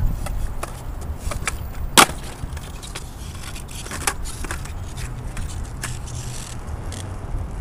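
Skateboard wheels rolling on concrete with a low rumble and scattered small clicks. A loud clack about two seconds in as the board drops off the ledge onto the pavement, and a smaller one about four seconds in.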